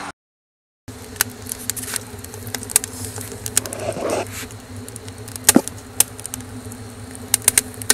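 Wood fire in a homemade rocket stove drawing hard: a steady buzzing drone of the draft, with frequent sharp crackles and pops from the burning wood. It begins after about a second of silence. This draft sound is taken as the sign of a strong draw and a correctly built stove.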